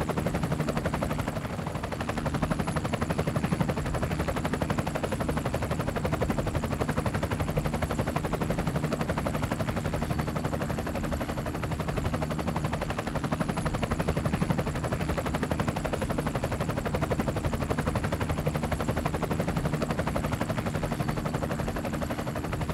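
A motor running steadily, with a fast, even flutter over a low hum.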